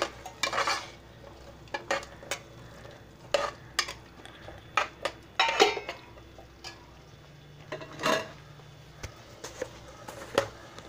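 Steel ladle stirring chickpeas into a thick masala in an aluminium pressure cooker, with irregular clinks and scrapes of metal against the pot's sides.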